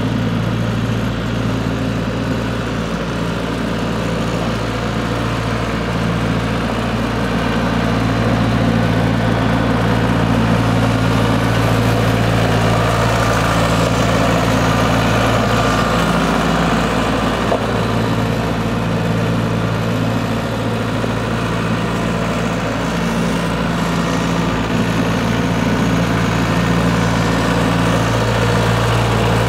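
ISEKI T625H 62 hp tractor's diesel engine running steadily at low engine speed while the tractor drives slowly, with an even, unchanging note.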